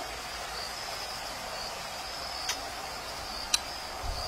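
Insects chirring steadily at a high pitch, with a couple of sharp clicks, the louder one about three and a half seconds in.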